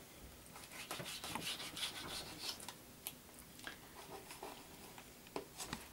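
Kitchen knife slicing through a raw yellowtail fillet on a plastic cutting board: faint, repeated scraping strokes of the blade through the flesh and against the board.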